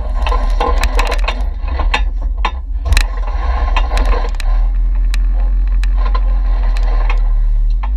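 Off-road vehicle crawling over a rocky trail. Through the first half there are rapid clicks, knocks and rattles as it jolts over rocks, all over a deep rumble. From about four seconds in, a steady low engine drone takes over.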